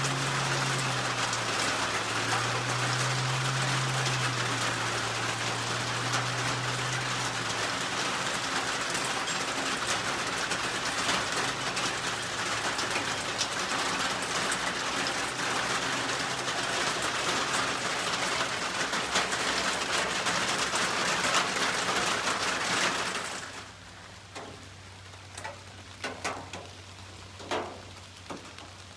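Steady heavy rain pattering down, with a vehicle's low engine hum under it for the first seven seconds or so. About 23 seconds in the rain cuts off abruptly, leaving a quiet background with a few sharp ticks.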